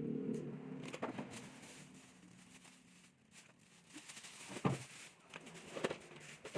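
A few scattered knocks and clacks of food containers being handled as a fridge is emptied, the loudest a little before five seconds in.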